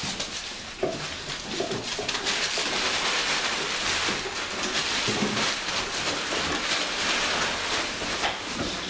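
Brown kraft paper crinkling and rustling under young puppies running across it on a tile floor, with a few brief puppy squeaks.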